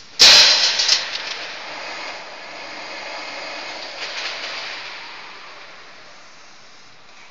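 Gear cold-forging hydraulic press line releasing pressure: a sudden loud hiss with a few clicks in the first second, then a softer rushing noise that swells again about four seconds in and slowly fades.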